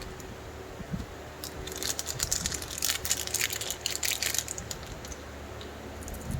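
A plastic or foil wrapper being crinkled and torn by hand, a dense crackling from about a second and a half in that dies down around the four-and-a-half second mark.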